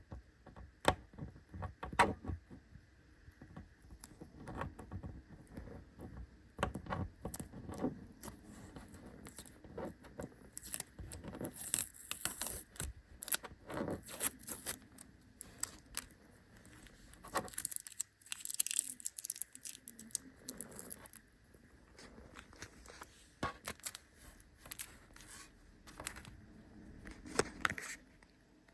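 Handling noise on a work desk: scattered clicks, taps and scrapes of small tools and the LED strip being moved about, with a few short, higher-pitched rustles.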